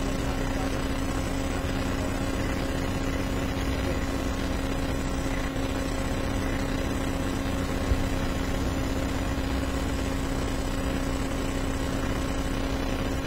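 Steady background hum and hiss with no speech, and a single short click about eight seconds in.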